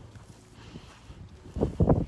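Quiet outdoor background, then a few loud, dull thumps near the end, like footsteps.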